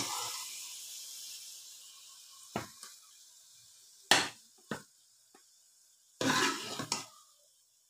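A metal ladle clinking and scraping against an aluminium cooking pot and a plate as curry is served out: a few sharp clinks, the loudest about four seconds in, and a longer scrape near the end. A soft hiss fades away over the first couple of seconds.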